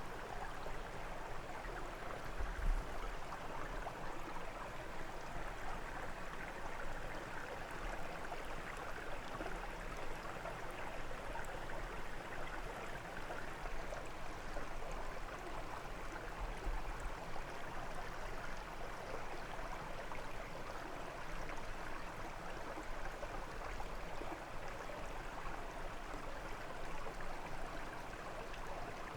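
Brook water running steadily over stones, an even rushing sound. Brief low rumbles come about three seconds in and again about halfway through.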